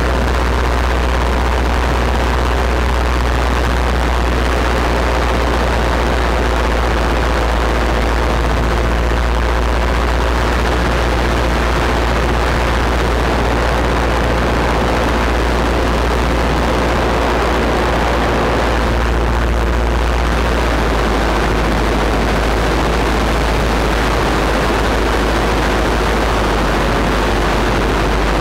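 Paramotor engine and propeller running steadily in flight, a constant loud drone with a deep hum underneath.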